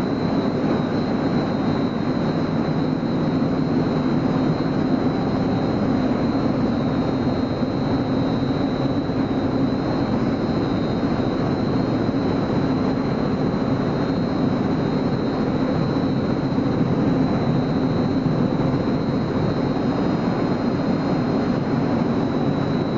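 Vibrating screen (coal and sand sieving machine) running steadily: a continuous mechanical hum and clatter with a thin, steady high whine over it.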